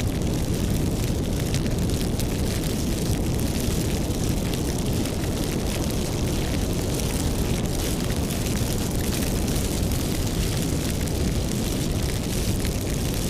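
Wood fire burning, with a steady low rumble of flames and frequent sharp crackles and pops throughout.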